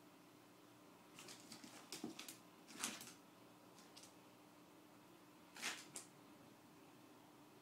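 Cats' paws and claws scrabbling and skidding on a hardwood floor in short scratchy flurries, a cluster from about a second in to three seconds in and two more near six seconds, over a faint steady hum.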